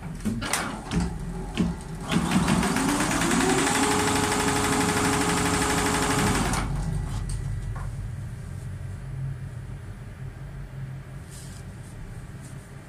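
A multi-needle embroidery machine runs for about four seconds. Its motor whine rises in pitch and then holds steady with a fast, even ticking, and it stops abruptly. A few sharp clicks come before it.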